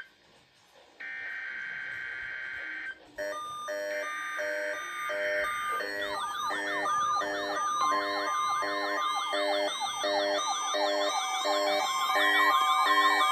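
NOAA Weather Radio SAME digital header bursts, a harsh two-tone data screech, followed from about three seconds in by several weather radio receivers and alert decoders sounding their alarms at once: steady pulsing beeps layered with repeating warbling, siren-like sweeps, growing louder toward the end.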